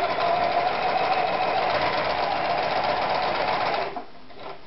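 Privileg Super Automatik 5021 domestic sewing machine running at a steady speed while stitching stretch knit fabric, then stopping near the end.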